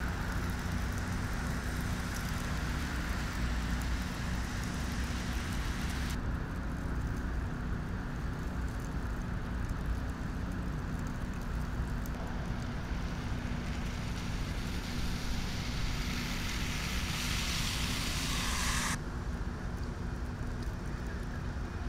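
Road traffic: a steady noise of passing cars with a low rumble. The sound changes abruptly twice, at about six seconds and near the end.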